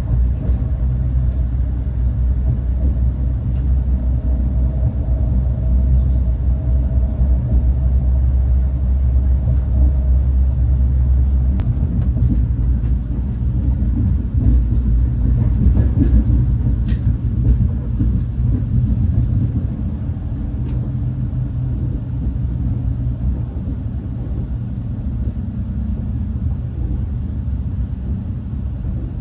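Running noise of a Renfe class 130 (Talgo 250) high-speed train on the move, heard from on board: a steady low rumble whose deep hum shifts about a third of the way in, with a few faint clicks around the middle.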